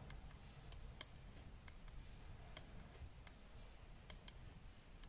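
Knit Pro 5 mm knitting needles clicking faintly against each other while a row is purled, about ten light, irregular clicks.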